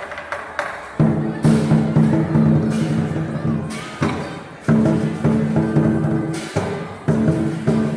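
Chinese lion dance percussion: heavy drum beats struck with crashing cymbals, about one loud hit a second, each leaving a ringing wash.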